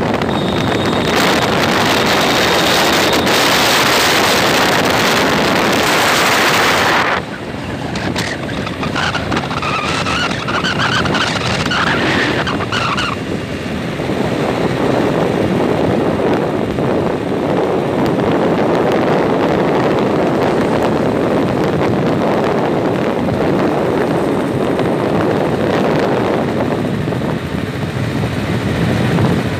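Wind buffeting the microphone over the noise of a moving vehicle on a road. The heavy wind rush drops off suddenly about seven seconds in, leaving steady road noise, with a brief wavering high whine about ten seconds in.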